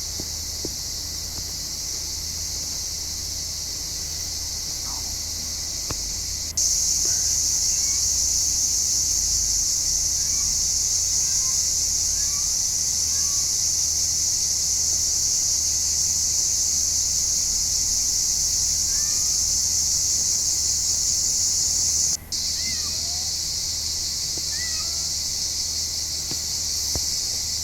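Steady high-pitched chorus of insects buzzing, growing louder about six seconds in and dropping back about 22 seconds in, with faint short bird chirps through it.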